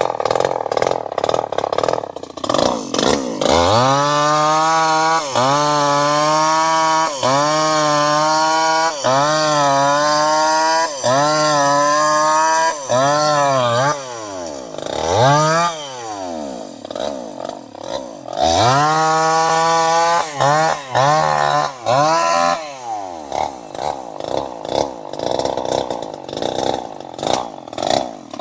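Two-stroke chainsaw engine running rough and low, then revved again and again to full throttle. Each rev is held about a second before dipping briefly. Between the two runs of revving it falls off in slower sweeps, and near the end it settles back to an uneven idle.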